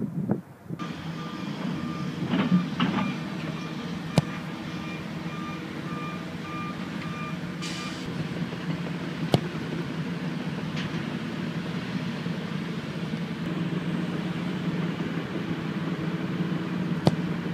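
A truck engine running steadily in the background, with a reversing alarm beeping over and over through the first half. Three sharp smacks of a football being kicked off a tee come about four seconds in, about nine seconds in, and near the end.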